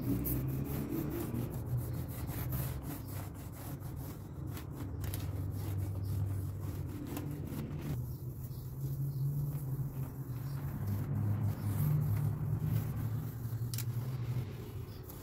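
A cloth rubbing and wiping over the glass of a framed picture, with a low rumble under it that swells and fades.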